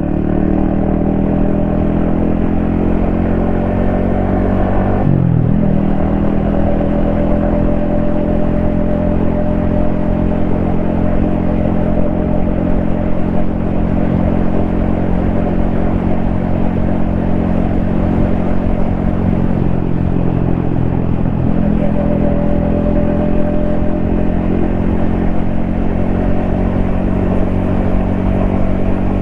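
Yamaha XSR155's single-cylinder engine running steadily under way. The engine pitch briefly drops and recovers about five seconds in and again around twenty seconds in.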